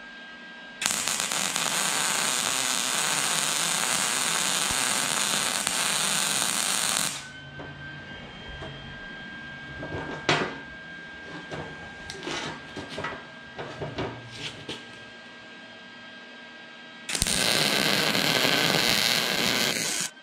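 Lincoln Easy-MIG 140 MIG welder arc crackling steadily as it fills ovaled-out holes in a steel bracket on its second-highest heat setting. It runs in two beads: one starts about a second in and lasts about six seconds, and after a pause filled with clicks and knocks of the workpiece being handled, a second bead starts near the end.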